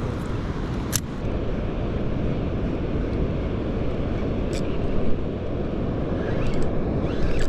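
Steady outdoor wind and surf rumble, heaviest in the low end, with a few short sharp clicks about a second in and again past the middle.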